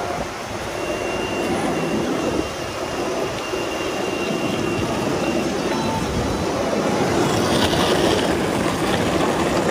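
Longboard wheels rolling fast over city street pavement: a steady rolling roar that grows a little louder over the last few seconds.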